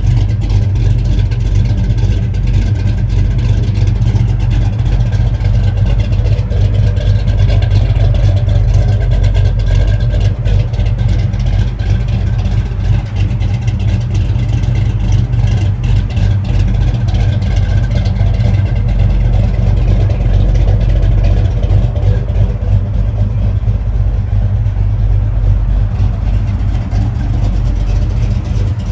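A 1970 Chevrolet Chevelle's 396 big-block V8 running steadily through headers and a dual exhaust, with a deep, even note and no sharp revs.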